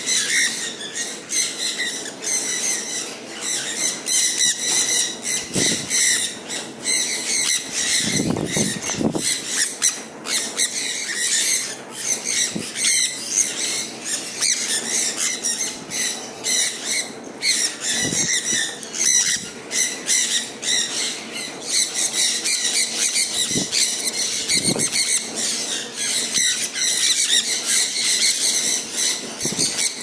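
A flock of sun conures screeching and squawking without a break, many birds calling over one another, with a few brief wing flaps in between.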